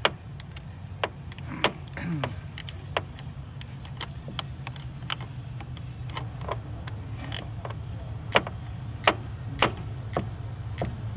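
Scattered metallic clicks and taps of a wrench tightening a 10 mm battery terminal clamp nut, irregular and about one or two a second, over a steady low hum.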